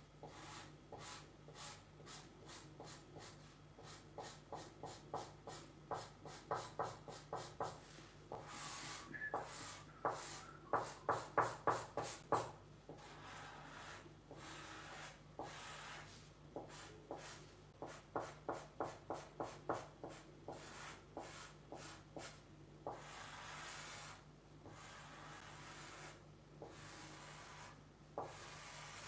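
Marker tip rubbing on paper in quick back-and-forth strokes while filling in solid black areas of an ink drawing, in runs of several strokes a second, loudest a little before the middle.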